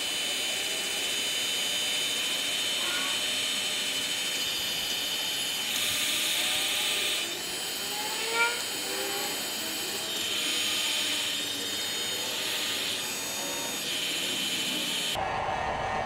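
Handheld electric heat gun running steadily, its fan blowing with a high hiss and a thin steady whine, while it shrinks heat-shrink tubing over wiring splices. About a second before the end the high hiss drops away abruptly.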